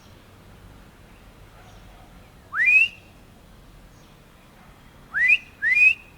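A person whistling loudly to call a lost pet cockatiel: three short rising whistles, one about two and a half seconds in and a quick pair near the end, each sliding up and ending on a higher note.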